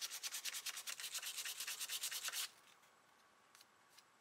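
Hand sanding with sandpaper on a small sanding pad against wood: quick, even back-and-forth scratchy strokes, several a second, that stop about two and a half seconds in. It is smoothing the wood filler in the tear-out around a plugged hole.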